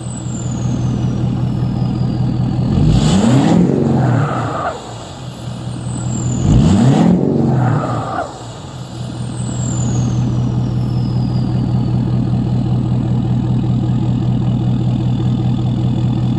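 Ford 6.7 L Power Stroke V8 turbodiesel idling and being revved twice, about 3 and 6.5 seconds in. After each rev a high turbo whistle slides down in pitch as the turbo spools down, and the engine settles back to a steady idle.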